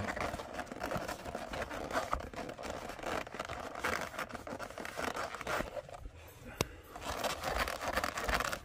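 Cloth rubbing conditioning oil into a leather bag and its straps, an uneven scuffing and rustling, with a single sharp click about six and a half seconds in.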